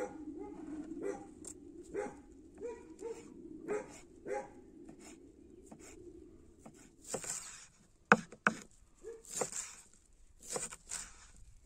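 An animal's short, repeated yelping calls over a steady low whine for the first six seconds or so. From about seven seconds in they give way to a run of sharp clicks and knocks with rustling, the loudest a crack a little after eight seconds.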